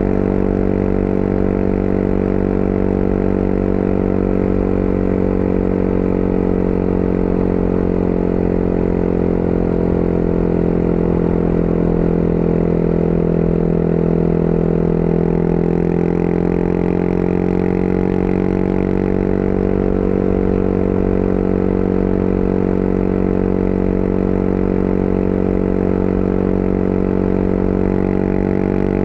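Motorcycle engine running steadily under way, its note rising a little and easing back down about halfway through.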